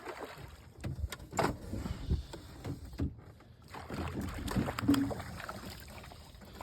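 Irregular knocks, clatter and handling noise on a fishing boat, with low rumbling from the water and hull.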